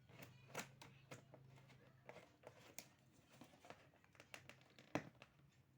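Air fryer packaging being handled: scattered light taps, rustles and clicks, with one sharper knock about five seconds in.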